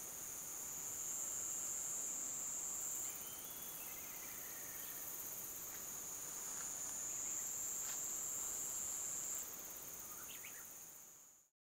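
Chorus of insects calling in steady high-pitched trills, the loudest trill stopping about three seconds in and again near the end, with a few faint bird chirps; it fades out at the very end.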